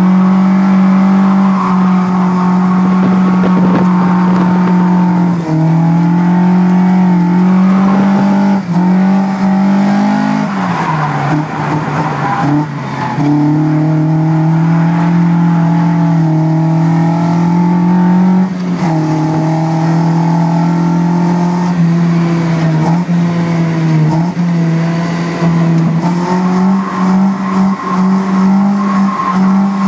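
Toyota AE86 Corolla's swapped-in Beams 3S-GE four-cylinder engine held at high revs while drifting, heard from inside the cabin, its pitch dipping briefly several times as the throttle is lifted and picked up again. Tyres squeal during a slide about a third of the way in.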